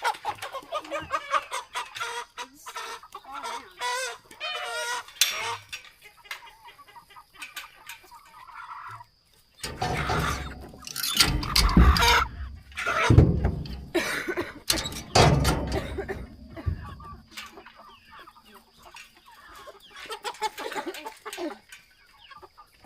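Chickens clucking and squawking as they are caught and loaded into a dog box, with loud bursts of commotion in the middle and quieter clucking toward the end.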